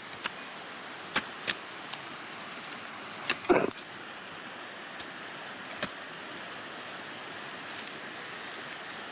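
Hand hoe striking the soil: a handful of sharp knocks spread over the first six seconds, the loudest about three and a half seconds in, over the steady rush of a nearby stream.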